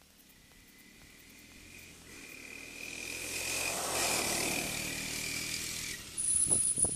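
A 1982 Honda ATC185S three-wheeler's single-cylinder four-stroke engine drives past, growing louder, loudest about four seconds in, then fading as it moves away. Near the end a louder, very high-pitched whine with sharp knocks close to the microphone takes over.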